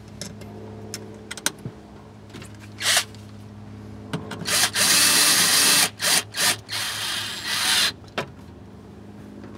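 Cordless drill/driver running in bursts while driving a screw: a brief pull about three seconds in, then a longer run of over a second, a few quick pulses, and a final run that stops about eight seconds in.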